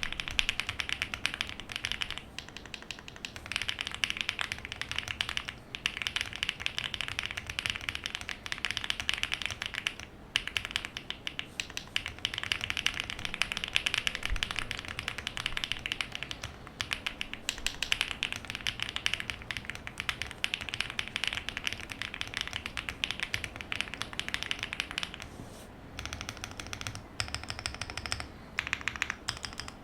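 Typing on a spring-mounted aluminium mechanical keyboard with Sillyworks Hyacinth v2 switches, a PC plate and GMK Panels keycaps: a fast, continuous stream of keystrokes on the letter keys, with a few brief pauses. Near the end the typing moves to the modifier keys, with sparser, deeper presses.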